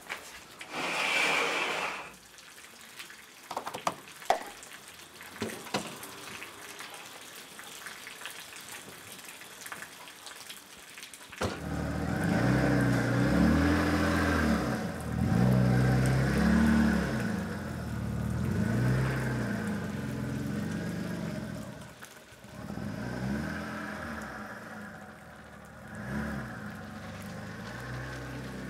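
Car engine running and being revved up and down again and again, coming in suddenly about a third of the way through. Before it there is a short hiss and a few sharp knocks.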